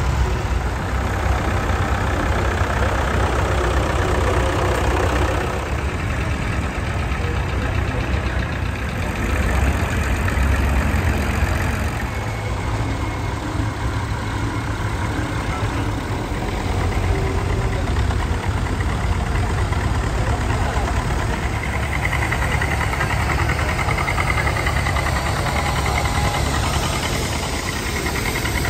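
Engines of vintage tractors, blue Fordsons among them, running at low revs as one after another drives slowly past, a steady engine sound that swells a little as each tractor comes close.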